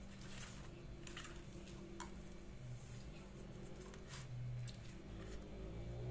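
Hand rubbing salt into whole raw fish in a stainless steel baking tray: faint wet squishing with a few light clicks, over a steady low hum.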